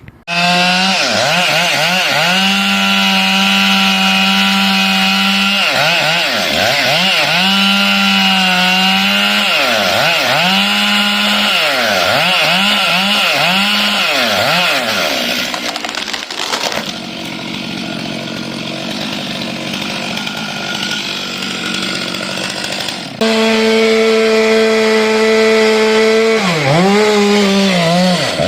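Two-stroke chainsaw running at high revs while cutting wood, its pitch dipping again and again as the chain bogs in the cut and then climbing back. About sixteen seconds in it becomes fainter and less distinct, then comes back loud and steady suddenly near the end.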